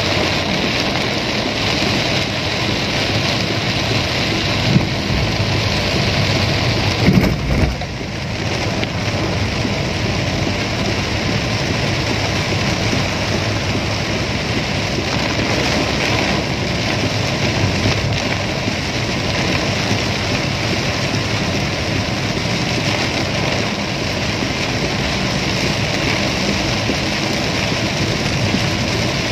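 Heavy downpour falling on a car's roof and windshield, heard from inside the cabin as a steady, loud hiss of rain. Two short thumps stand out about five and seven seconds in.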